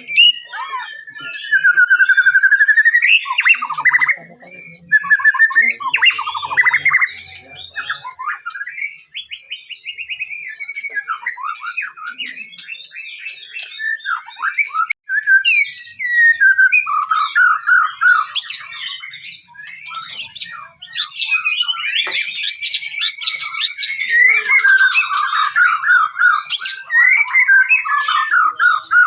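White-rumped shama (murai batu) singing a long, varied song of whistled glides, rapid trills and chattering notes. The song eases off briefly near the first third, then grows denser with fast trilling in the second half.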